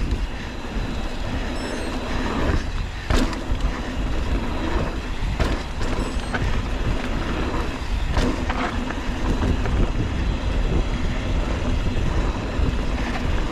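Mountain bike ridden down a dirt trail: a steady rush of wind on the microphone with tyre and drivetrain rattle, broken by a few sharp knocks from bumps, the clearest about three seconds in.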